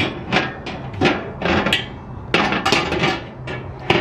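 Metal wire cooking grate being set onto a charcoal kettle grill's bowl, clanking and rattling against the rim in a string of sharp, irregular metallic knocks, with a last clank near the end.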